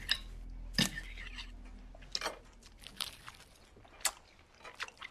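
Knife and fork scraping and clicking on a plate as a steak is cut, then a man chewing, heard as scattered sharp clicks about a second apart.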